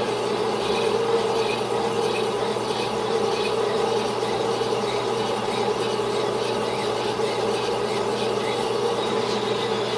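Sunnen honing machine running with its mandrel spinning, its honing stones being trued against a hand-held truing sleeve. A steady motor hum with a gritty rasp of stone on the sleeve.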